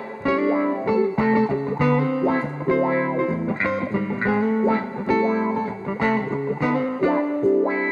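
Stratocaster-style electric guitar played through an amplifier: a continuous run of picked single notes and chords.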